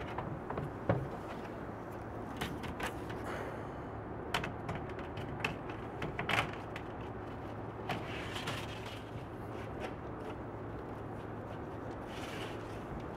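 Solatube daylighting tube being set down and pressed into its roof flashing: scattered light knocks, clicks and short scrapes, the loudest about six seconds in, over a steady low hum.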